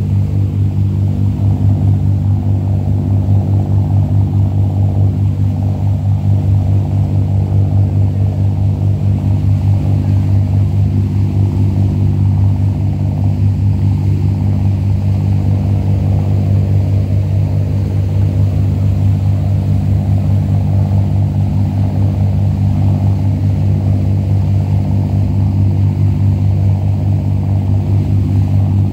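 A boat's engine running steadily while under way, a deep, even drone heard from on board.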